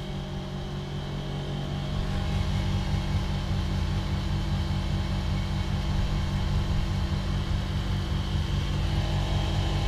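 TCL ductless split air conditioner's outdoor compressor humming steadily, with its fan stopped during a defrost cycle.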